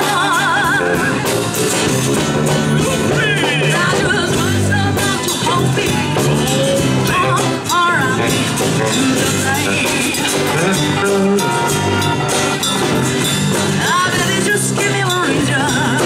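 Live band jamming freely: electric bass guitar grooving over a drum kit, with a voice singing improvised lines with vibrato over the top.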